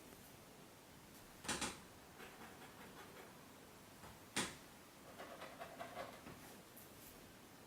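Kitten playing with a cardboard box: two sharp knocks, about one and a half seconds in and again three seconds later, with light scratching and pattering between and after them.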